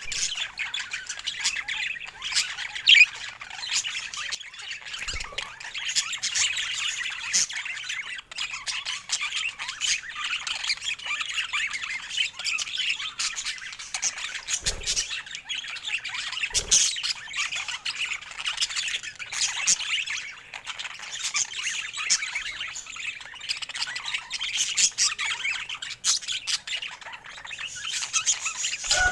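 A flock of budgerigars chattering: a dense, continuous mix of warbles, chirps and squawks, with one loud squawk about three seconds in.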